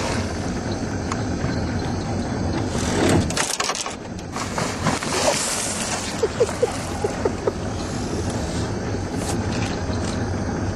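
Steady rushing noise of a small boat on the water, dipping briefly about four seconds in. A little past the middle comes a quick run of about six short, squeaky chirps.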